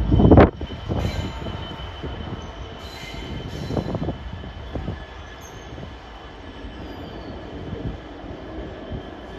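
Freight train wagons rolling past on the rails with a steady low rumble and a faint, steady high wheel squeal. A loud bang comes about half a second in, followed by a few lighter clanks.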